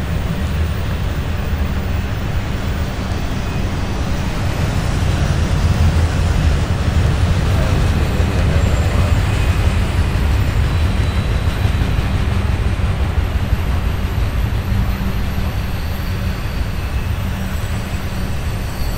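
Freight train of auto rack cars rolling past, a steady low rumble of steel wheels on rail.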